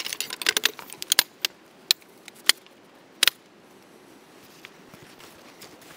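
Shock-corded aluminium poles of a small packable camping chair clicking and knocking together as the frame is pulled from its sack and unfolded: a quick run of sharp clicks over the first three seconds, the loudest a double click about three seconds in, then only faint handling noise.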